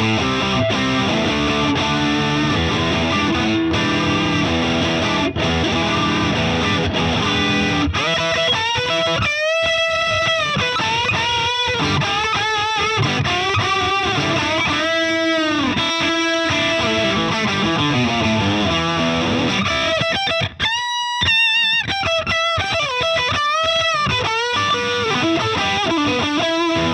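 Heavily distorted electric guitar, a Stratocaster on its bridge pickup played through the Boss IR-2 amp and cabinet simulator's high-gain 'Modded' amp model. It plays chords for the first several seconds, then single-note lead lines with string bends and vibrato.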